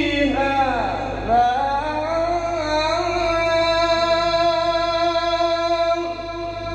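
A man's voice chanting Quranic recitation in a maqam: a quick, ornamented downward run, then one long held note, with a new phrase starting near the end.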